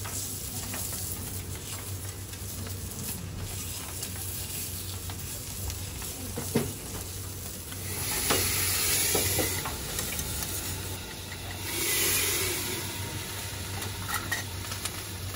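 Abalone sizzling on a hot teppanyaki griddle, with a few sharp clicks and scrapes of the steel spatulas against the plate. The sizzle swells louder about halfway through and again near the three-quarter mark, over a steady low hum.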